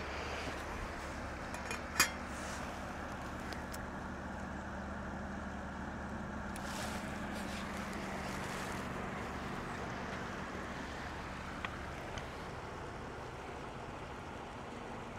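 Steady riverside ambience: flowing river water with a faint low hum under it, and a single sharp click about two seconds in.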